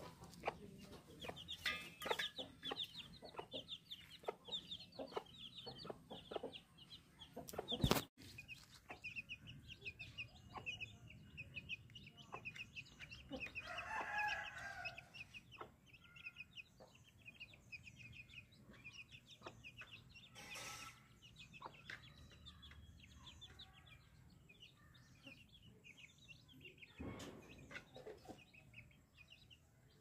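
Aseel chicks peeping rapidly and almost without pause, high-pitched. About fourteen seconds in, a lower, louder call from an adult chicken stands out, and knocks are scattered through the first several seconds.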